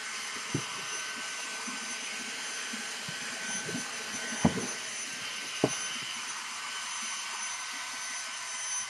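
Vacuum cleaner running steadily on carpet, its motor giving a constant whine, with a few light knocks about half a second, four and a half and five and a half seconds in.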